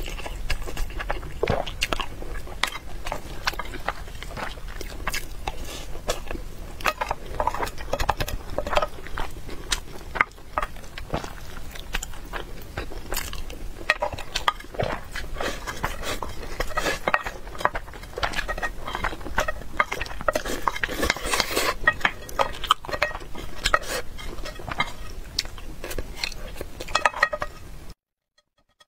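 Close-miked eating: wet chewing of a mouthful of rice, with a wooden spoon scraping and tapping against a glass bowl as the last of the rice is scooped up. The sound cuts off abruptly near the end.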